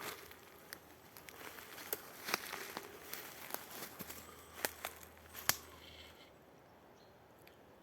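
Footsteps on a forest floor, with twigs and dry litter crackling and snapping underfoot in an irregular run of sharp clicks that stops about five and a half seconds in.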